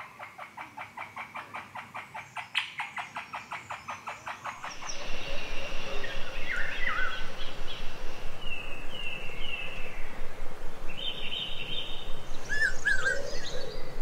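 Forest bird calls. A fast, even rattle of about five notes a second runs for the first few seconds. Then louder birdsong follows, with short whistles and downward-sliding calls.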